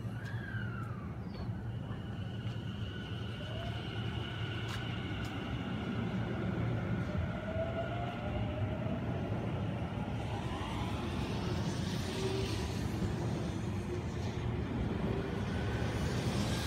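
Electric commuter train at a station platform, its motors giving whining tones that glide down and then up over a steady low hum, growing slowly louder.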